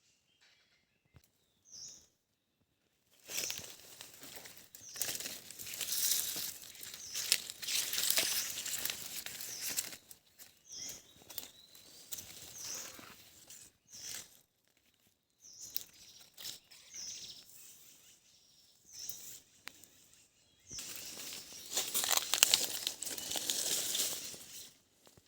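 Bursts of crackling, crinkling rustle, made of many quick clicks, in two long stretches with quieter gaps between them, and faint short bird chirps in the background.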